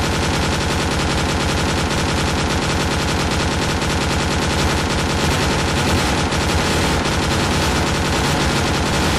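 WWI-style machine gun firing one long unbroken burst of rapid, evenly spaced shots.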